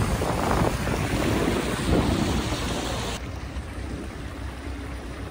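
Wind buffeting the microphone and water rushing past a moving boat, giving a loud, even rush that cuts off suddenly about three seconds in to a quieter low rumble.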